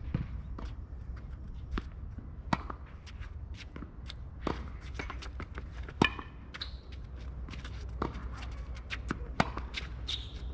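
Tennis rally on a hard court: sharp racket strikes on the ball and ball bounces every second or two, the loudest about six seconds in, with scuffing footsteps between them over a steady low rumble.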